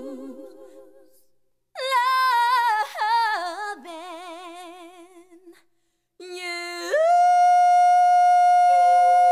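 Female voices singing a cappella with wide vibrato, in short phrases broken by brief pauses. About seven seconds in they settle on a long held note, and a lower harmony note joins it near the end.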